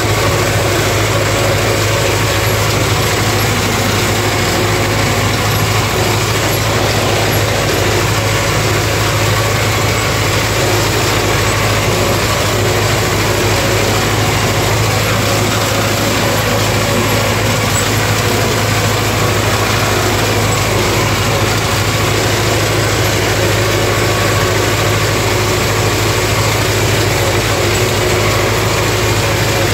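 MTZ-50 tractor's four-cylinder diesel engine running steadily, heard from inside the cab, with the ZTR-165 rotary mower working behind it.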